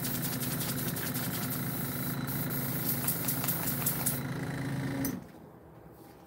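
Small airbrush compressor running with a steady motor hum and a hiss of air, cutting off suddenly about five seconds in.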